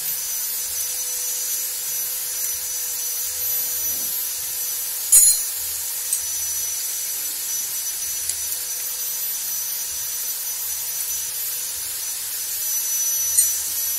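Steady high-pitched hiss of background noise, with one sharp knock about five seconds in and a smaller click near the end.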